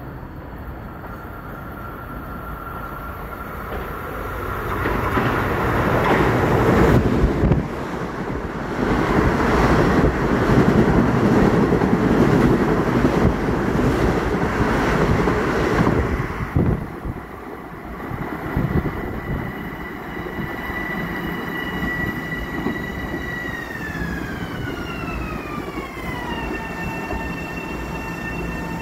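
Long Island Rail Road M7 electric train passing at speed on the near track: a rush of wheels and motors swells up, runs loud for about ten seconds and cuts off suddenly. Then a high electric whine of several tones holds steady, glides down in pitch and settles, as an M7 on a far track brakes to a stop.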